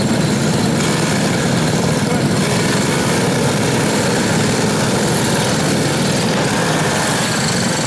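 Several kid karts' small engines running together on the grid, a steady, unbroken engine din.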